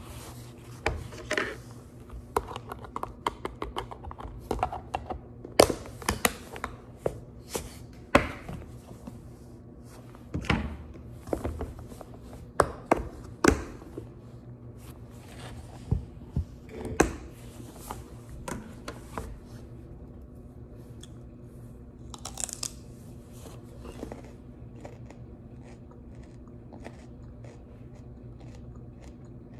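Irregular close clicks, knocks and crunches over a steady low hum, coming thick for about twenty seconds and then thinning out.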